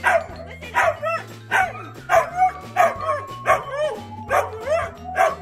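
Husky-mix dog barking repeatedly in short, pitch-bending borks, about two a second, over background music.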